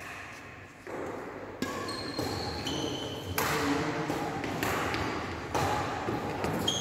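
Sharp knocks and short high-pitched squeaks echoing in a large sports hall during badminton play: racket hits on the shuttlecock and shoes squeaking on the wooden court floor. The sound grows louder about halfway through.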